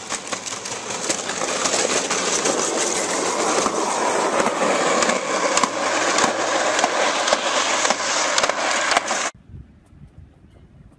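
Hard plastic wheels of a small ride-on toy rolling fast down asphalt: a loud, steady rattling rumble, full of clicks. It cuts off suddenly about nine seconds in.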